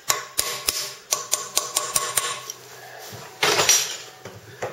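Hammer striking a steel pin punch, about eight quick ringing metal blows in the first two and a half seconds. The blows drive the lock pin of a 1948 Chevrolet 3-speed transmission's reverse idler shaft through the cast iron case and into the shaft. A louder clatter follows near the end.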